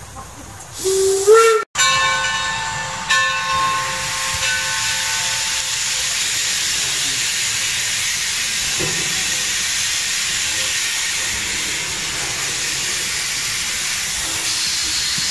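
Steam whistle of the coal-fired steam locomotive No. 3 Torch Lake blowing about a second in, rising in pitch as it opens, then holding a steady chord that sounds again briefly and fades. After it, a loud, steady hiss of steam venting from the locomotive.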